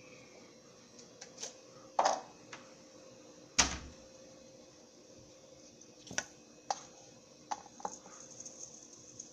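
Scattered knocks and clinks of a cup being fetched and handled, about six separate hits, the loudest about three and a half seconds in.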